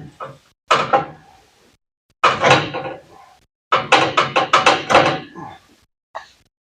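A string of metallic knocks and clanks as the exhaust header is handled and fitted against the engine's cylinder head, with a quick run of about seven knocks in the middle and a single knock near the end.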